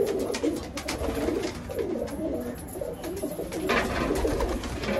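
Several domestic pigeons cooing together. Near the end comes a short burst of wing flapping.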